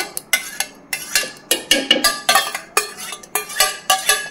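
Steel bowl clinking and scraping against a stainless-steel mixer-grinder jar as thick curd is poured and scraped out into it. A rapid run of metal clinks, about four a second, each with a short ring.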